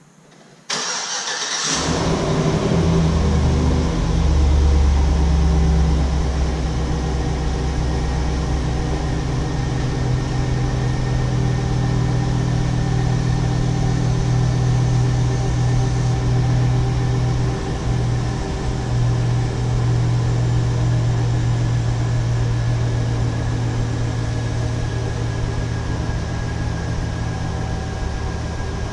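2004 Chevrolet SSR's 5.3-litre V8 cranked by the starter and catching about two seconds in, then idling steadily.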